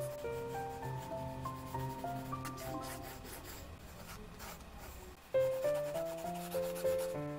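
A pencil scratching across watercolour sketchbook paper in quick sketching strokes, over piano music that grows louder about five seconds in.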